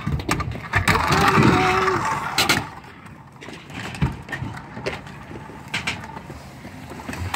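Wheels rolling over skate ramps and concrete, loudest for a second or so shortly after the start, with a few sharp clacks of scooter and skateboard landings scattered through.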